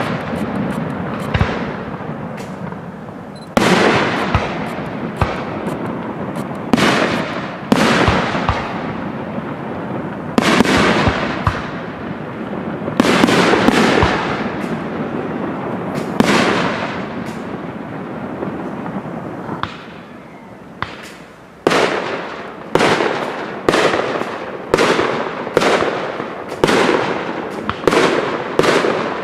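Aerial firework shells bursting one after another, each bang trailing off in a long rolling echo. The bangs come every few seconds at first, then after a brief lull follow in a quicker run of about one a second.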